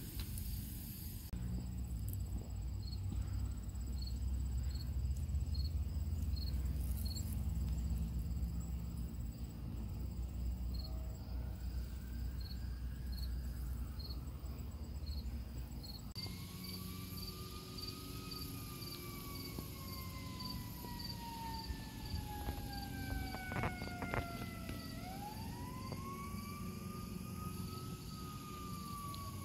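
Crickets chirping steadily, high and regular, about two to three chirps a second, over a low rumble. About halfway through the sound changes abruptly: the rumble drops away and a siren wails, its pitch rising briefly and falling slowly, over the continuing chirps.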